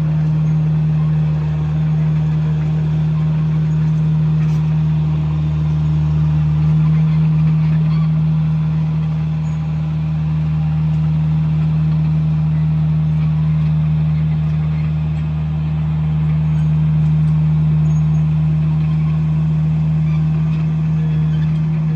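Komatsu bulldozer's diesel engine running steadily as a loud, low, even drone, swelling slightly now and then.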